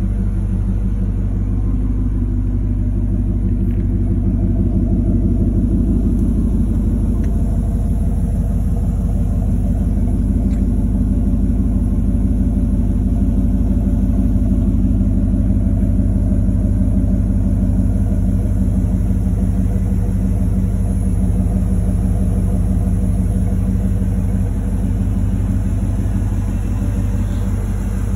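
1998 Chevrolet Silverado Z71 pickup's engine idling steadily, a low even rumble.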